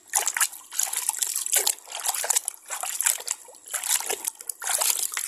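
Water trickling and splashing in irregular bursts as a small toy vehicle is washed by hand.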